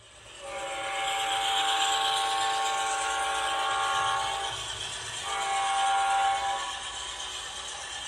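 ESU LokSound 5 sound decoder in an H0 model of a GE Dash 9 diesel locomotive sounding its multi-note air horn through the model's loudspeaker. It gives a long blast of about four seconds, then a shorter one of about a second and a half, over a steady hiss and rumble.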